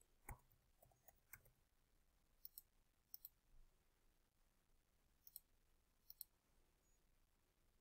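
Faint computer mouse clicks and keyboard taps, a handful of short clicks scattered over near-silent room tone, some in close pairs.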